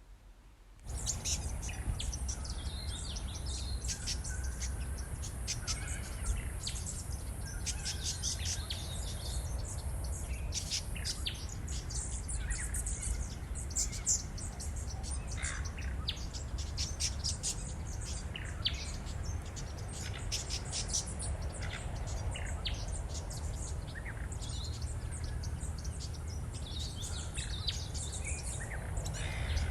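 Many wild birds chirping and calling at once in bushland, a dense overlapping chorus starting about a second in, over a steady low rumble.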